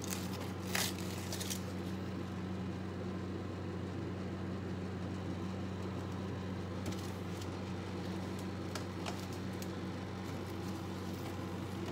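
A steady low hum with a few light rustles and clicks.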